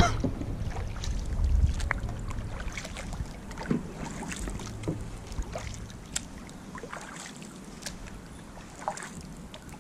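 Kayak paddling: a double-bladed paddle dipping on alternate sides, with scattered small splashes and drips of water off the blades and light lapping at the hull. Wind rumbles on the microphone in the first couple of seconds.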